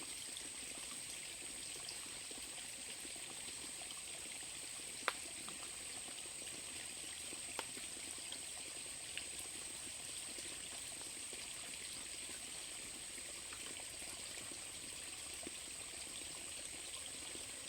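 Steady rush of flowing river water, with a thin steady high-pitched tone over it and a few sharp clicks, the loudest about five seconds in.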